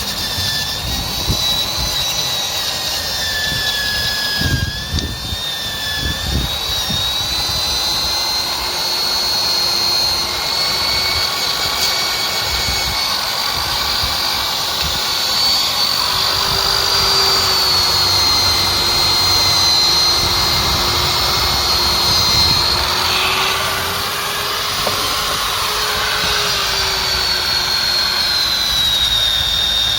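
Electric drill running a wire brush against engine parts to scrub off carbon deposits: a steady high motor whine that dips and rises a little as the brush is pressed on, with scratching noise from the wire bristles.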